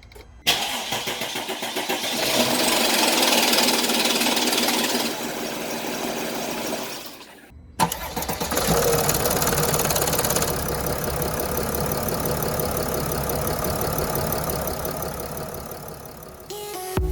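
Mercedes Sprinter V6 engine starting from cold and running with a clicking rattle, the sign of a stretched timing chain with its tensioner at the end of its travel. It starts twice, about half a second in and again about eight seconds in.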